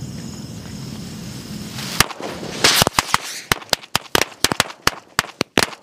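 A string of small red firecrackers going off. About two seconds in there is a first bang, then a rapid, irregular run of sharp cracks for about three seconds, ending near the end.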